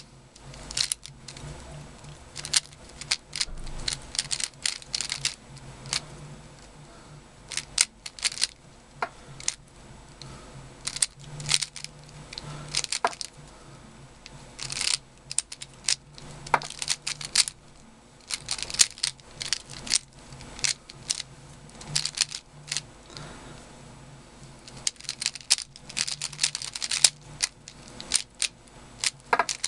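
Magic Friends 3x3 speedcube, a Dayan Zhanchi clone, turned quickly by hand through a solve: irregular runs of plastic clicking and clacking as the layers turn, with brief pauses between them.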